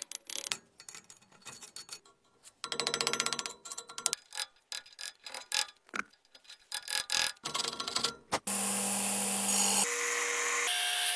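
A metal chisel chipping at a rough metal casting: scattered sharp taps, with a fast run of strikes about three seconds in. About eight and a half seconds in, a belt grinder starts running steadily, grinding the casting.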